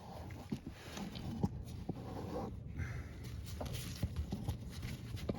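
Scattered light knocks and rubbing from hands working the lawn tractor's rubber drive belt off the pulley under the cooling fan.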